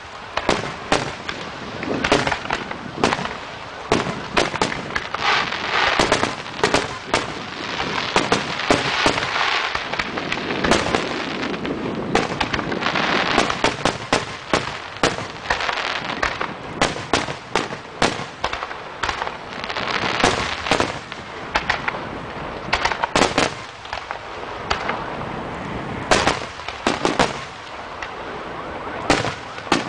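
Aerial fireworks shells bursting overhead in rapid succession: dozens of sharp bangs, with long stretches of dense crackling hiss between them.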